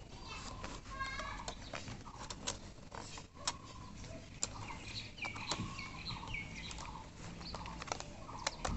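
Thin bamboo sticks clicking and tapping against each other as they are handled and bound with a plastic strip, in scattered short clicks. Short chirping calls sound faintly behind them, most clearly around the middle.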